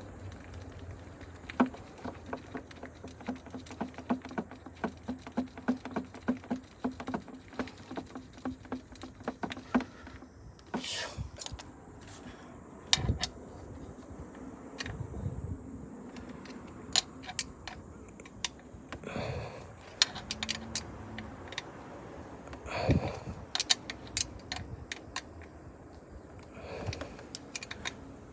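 Hand tools working on a motorcycle engine: a quick, even run of metal clicks, about four or five a second, for the first ten seconds, then scattered clinks and a few duller knocks.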